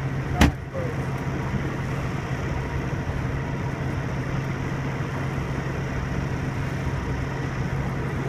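Boat engine idling with a steady low hum, and a single sharp knock about half a second in.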